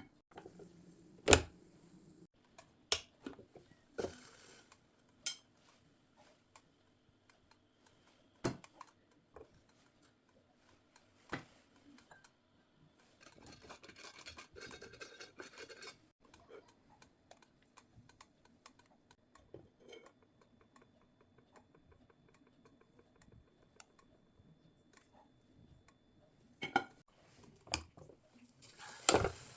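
Kitchen handling sounds: scattered clicks and knocks of dishes and utensils being set down and moved, with a few seconds of scraping or rustling about halfway through and a quick cluster of knocks near the end.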